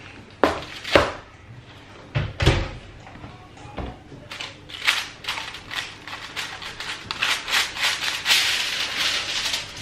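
A few knocks as a hot baking dish is set down on a wooden board, then aluminium foil crinkling and rustling from about four seconds in as it is peeled off the dish.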